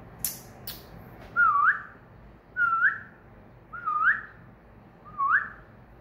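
Cockatiel whistling four short notes about a second apart, each dipping slightly and then sweeping sharply upward. Two sharp clicks come just before the first whistle.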